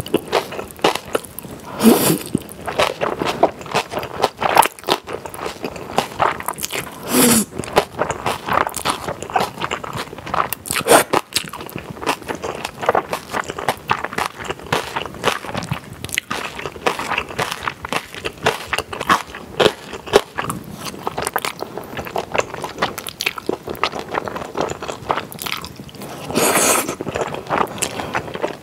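Close-miked eating of spicy jajangmyeon made with barley and Chinese glass noodles: dense wet chewing and biting throughout. A few longer, louder slurps of noodles come about 2 s in, about 7 s in, and near the end.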